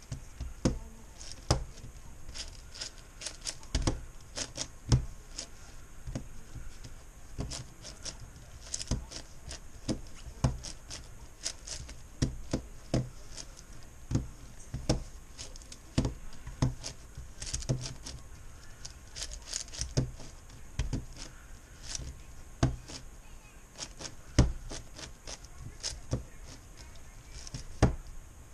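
Plastic clicks and clacks of a MoYu Meilong 10x10x10 puzzle cube being turned one-handed during the centers stage. The sharp clicks come unevenly, a few a second.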